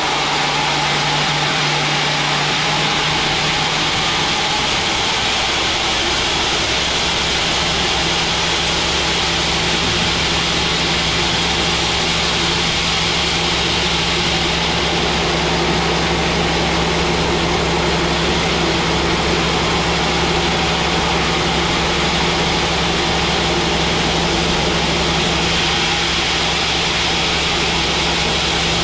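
Large band sawmill running, its blade ripping lengthwise through a thick mahogany block over the steady hum of its drive. The hum rises slightly in pitch about three seconds in.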